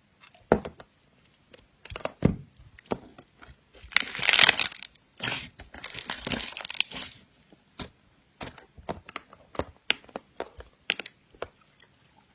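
Slime being squeezed and worked by hand, giving a run of sharp pops and crackles that is densest about four to seven seconds in.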